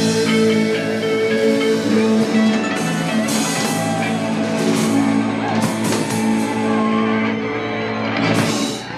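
Live band with guitar and drum kit playing an instrumental passage, with sustained notes and repeated cymbal and drum hits building to a final hit near the end.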